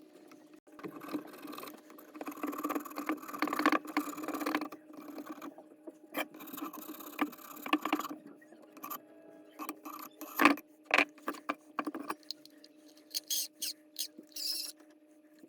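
Old silicone sealant being scraped and picked out of a hand-crank forge blower's metal gear housing: irregular scraping and rubbing with sharp clicks of the tool on metal, then a few separate taps near the end. A steady hum runs underneath.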